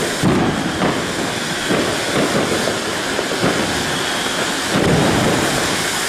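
Ground fountain firework spraying sparks with a steady, loud hiss, over uneven low rumbling surges.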